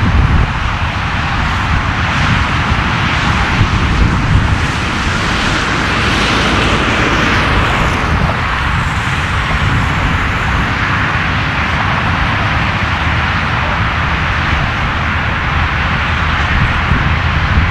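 Jet airliner engine noise: a steady, loud rush with a rumbling low end and a faint falling whine about six to ten seconds in.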